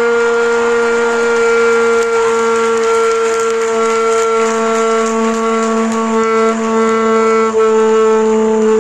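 Music with one long note held at a steady pitch throughout, with fainter shifting notes above it.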